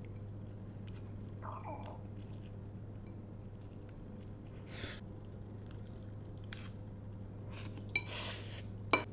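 Chewing a mouthful of Indomie Mi Goreng fried instant noodles, with scattered faint mouth clicks and a couple of short, sharper noises near the end, over a steady low hum.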